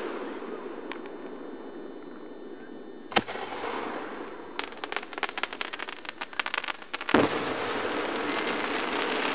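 Aerial fireworks shells bursting: a boom about three seconds in, a run of quick crackling pops, then a louder boom about seven seconds in. Each boom trails off in a long echo.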